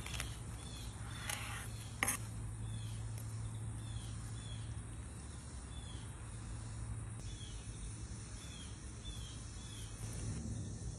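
Outdoor chirping: short chirps repeating about once a second over a steady low hum. Two sharp crunches or knocks come in the first two seconds as a knife finishes cutting through a toasted burger bun on a cutting board.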